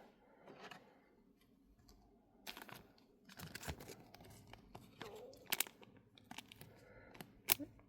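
Trading card packaging being handled and worked open: scattered crinkling, rustling and sharp little clicks, starting about two seconds in.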